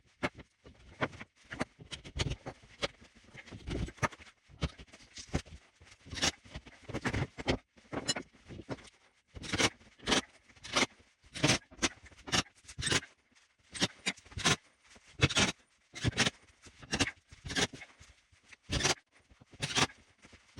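Handsaw cutting a sheet of OSB to a marked width, a run of rasping strokes that is irregular at first and settles into an even rhythm of about one and a half strokes a second from about halfway through.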